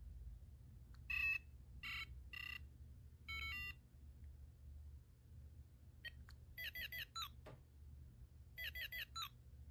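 Grogu-edition Tamagotchi virtual pet beeping as its screen animates: a few short beeps and a little stepped tune in the first half, then quick runs of falling chirps in the second half.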